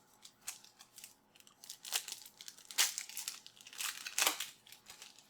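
Football trading cards and their foil pack wrapper being handled: a series of short crinkling, sliding rustles, the loudest from about two to four and a half seconds in.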